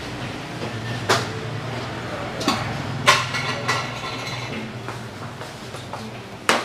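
Crockery clinking in a small eatery: a few short sharp clinks of ceramic bowls and spoons over a steady low hum, with voices in the background.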